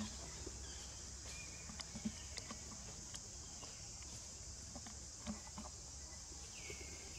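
Steady high-pitched drone of insects in the forest, with faint scattered ticks and rustles in dry leaves, and a faint falling whistle near the end.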